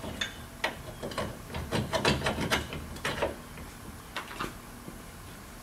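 Clanks, knocks and scrapes of a powder-coated steel spreader hitch mount being slid and worked into a 2-inch truck hitch receiver, metal on metal. A quick string of knocks for about three seconds, then a few scattered ones.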